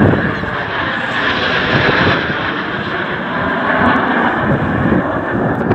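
Jet noise from a low-passing NF-5 aerobatic jet trailing display smoke overhead: a loud, steady rushing sound with no break.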